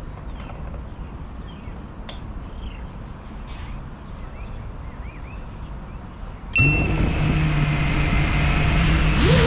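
Faint outdoor background noise, then about two-thirds of the way in an FPV quadcopter's brushless motors start up suddenly and spin at a steady idle whine. Just before the end the pitch begins to climb as the throttle is raised for takeoff.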